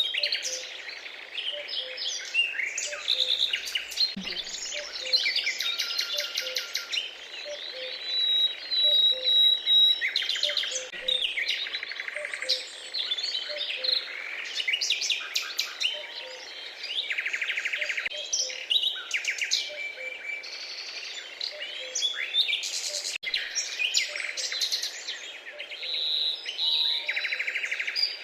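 A chorus of several birds calling at once: overlapping chirps, fast rapid-note trills and whistles, with one held whistle about a third of the way in. Faint short low notes repeat underneath.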